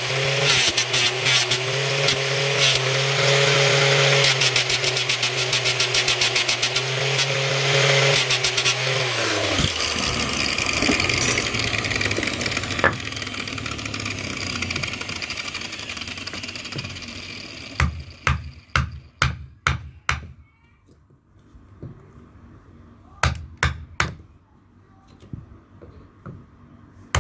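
Angle grinder with a sanding disc running against a wooden chisel handle, then switched off and spinning down about a third of the way in. Later come two runs of quick hammer blows, several strikes each, as the handle is fitted onto the chisel.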